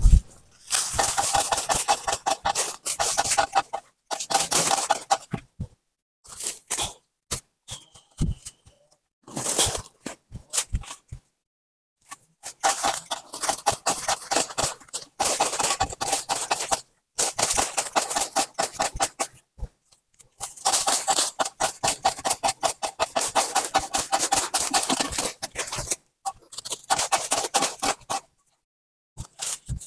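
Leafy cardamom plants rustling and crackling as they are handled and pulled up, in bursts of a few seconds with short pauses between.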